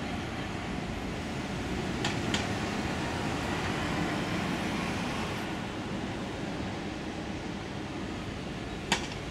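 Road traffic at a busy city junction: London double-decker buses, a lorry, vans and cars running and pulling through, a steady rumble that swells a little about halfway through. A few short clicks about two seconds in and a sharp knock near the end.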